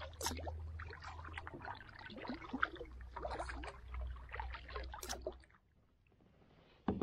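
Canoe paddling: irregular small splashes and drips of water off the paddle blade, with trickling along the hull over a low steady rumble. It cuts off abruptly about five and a half seconds in, leaving near silence.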